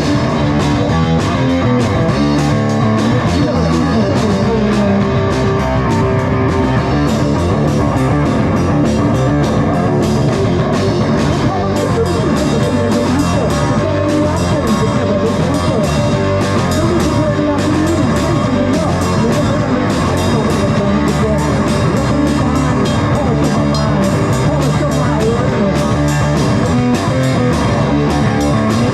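Rock music with guitar and a drum kit playing steadily.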